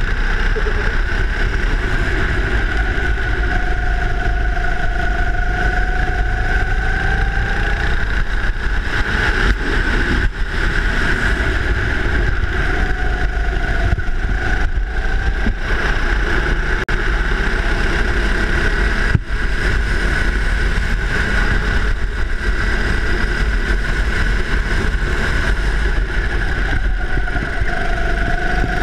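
Go-kart engine running hard while lapping a track, heard from on board the kart, with a steady high engine note that barely wavers and a strong low rumble.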